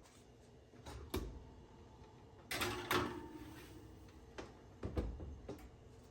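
Household handling sounds: a few light knocks and clicks with a short scraping rustle about two and a half seconds in.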